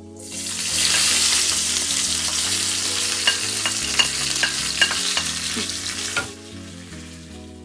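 Sliced onion, green chili and curry leaves sizzling loudly in hot oil in a pan, with a spatula knocking against the pan several times about three to five seconds in. The sizzling cuts off about six seconds in, leaving soft background music.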